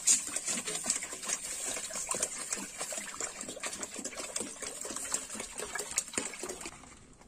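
Water poured from a plastic jerrycan into an aluminium pot of fish broth, splashing steadily into the liquid, and tailing off near the end.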